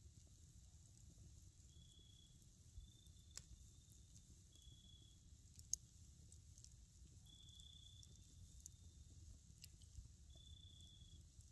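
Wood campfire burning quietly, with a few sharp crackles and pops, the loudest about halfway through. Insects call in a high, steady buzz that comes and goes every second or two.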